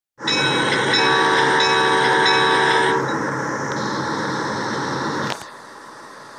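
Train horn blowing a steady chord of several tones over the rumble of a moving train. The horn stops about three seconds in, and the rumble runs on until it cuts off with a click over five seconds in.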